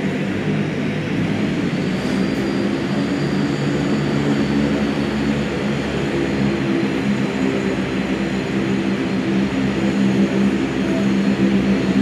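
Bombardier Q400 turboprop idling on the ground, its two Pratt & Whitney PW150A engines running and propellers turning, a steady low propeller drone heard through the terminal window.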